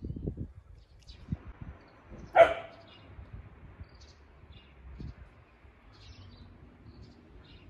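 A single short dog bark from an Akita, about two and a half seconds in, with faint bird chirps around it.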